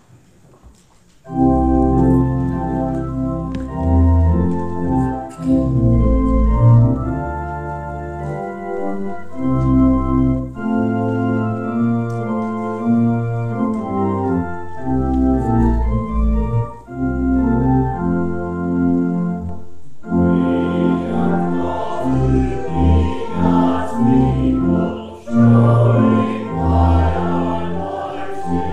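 Church organ playing the introduction to a hymn with steady held chords, starting about a second in. About two-thirds of the way through, voices join in singing the hymn with the organ.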